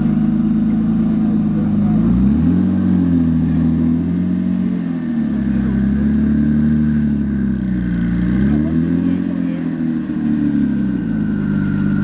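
Modified Porsche 996 Twin Turbo's twin-turbo flat-six running at a steady idle, with the revs raised gently twice, each time rising, holding briefly, then dropping back to idle.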